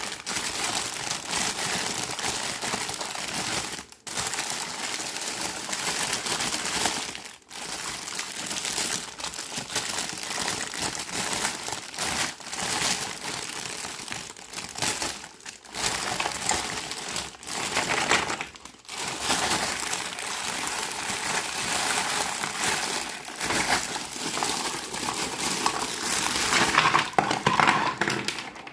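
Plastic packaging crinkling and crackling almost without a break as a miniature toy set is unwrapped, with a few short pauses.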